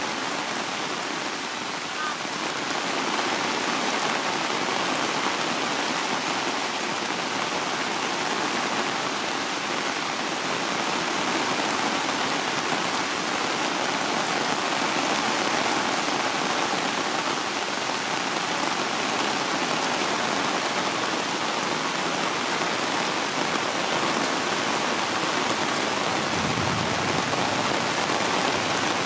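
Heavy rain falling steadily, splashing on wet concrete.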